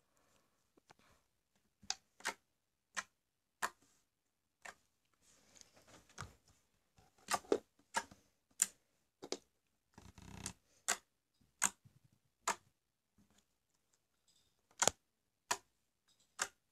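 Blue slime being pressed and kneaded by fingers, giving sharp irregular pops and clicks as trapped air pockets burst, about one or two a second. Softer squishing comes between them twice, around the middle and about ten seconds in.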